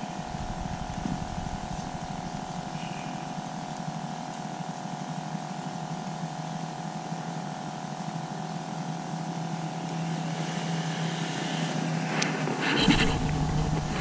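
A steady, engine-like mechanical hum, with a few sharp clicks and a low rumble near the end.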